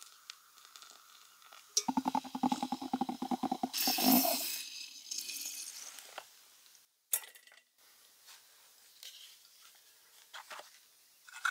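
AeroPress-style coffee maker in use: hot water is poured faintly into the grounds, then a rapid rattling squeak lasts a couple of seconds and ends in a short hiss as the plunger is pushed down through the chamber. A few light clicks and clinks of the gear follow.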